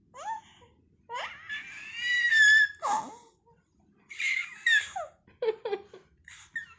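A baby squealing and laughing: a long high-pitched squeal in the first half, then short choppy bursts of laughter.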